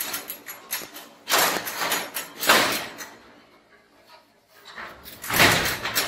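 Sectional garage door that has come off its track being pushed and shifted by hand, its panels and hinges rattling and scraping in three loud surges, about one, two and a half, and five and a half seconds in.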